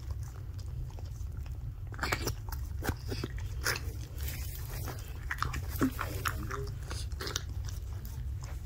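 Siberian Husky mother licking and chewing at her newborn puppy: irregular wet smacking and crunching noises that start about two seconds in, over a steady low hum.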